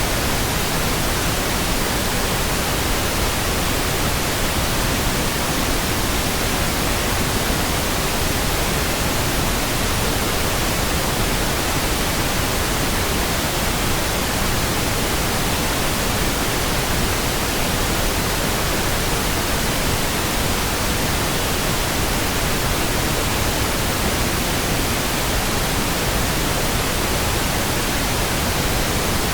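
Steady, even pink noise: a constant hiss with no changes or sudden sounds.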